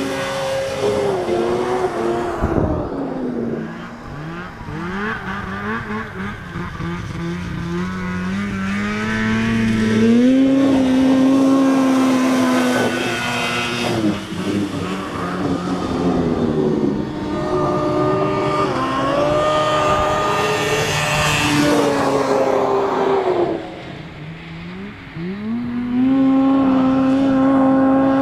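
Two-stroke snowmobile engines running hard across the snow, the pitch climbing as a sled accelerates and sliding down as it backs off. The pitch falls about two seconds in and climbs back to a steady high run, then dips again and rises once more near the end.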